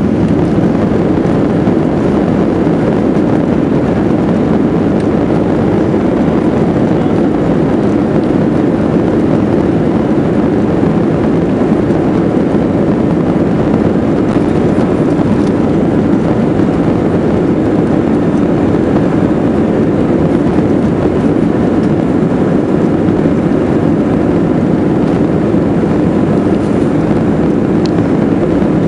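Airbus A320 cabin noise heard from a window seat as the jet rolls along the ground: a loud, steady rumble of engines and rolling wheels that holds level throughout.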